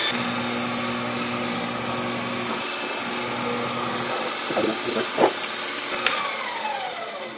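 Sherline mini mill's spindle motor running as a center drill cuts into an aluminum block. About six seconds in there is a click, and the pitch then falls as the spindle winds down.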